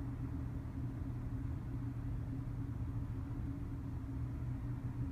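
Vehicle engine idling: a steady low hum that does not change.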